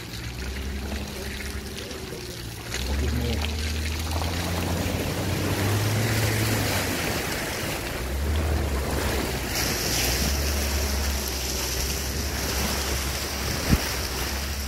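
Porsche Cayenne S driving slowly through a deep muddy puddle: a low engine hum under the rush and splash of the water pushed along the car's side, which gets louder about three seconds in. A single sharp knock near the end.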